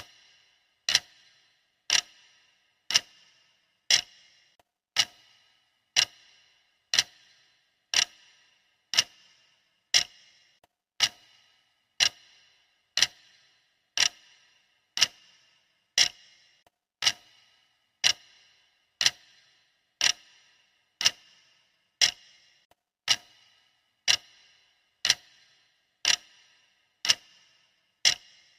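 Clock ticking: one short, sharp tick about every second, steady and even.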